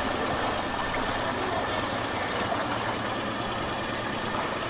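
An engine idling steadily, its low hum stopping about four seconds in, over a steady outdoor background hiss.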